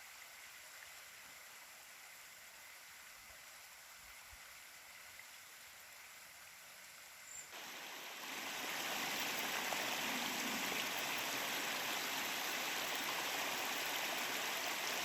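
Steady rushing hiss, faint at first, then much louder from about halfway through.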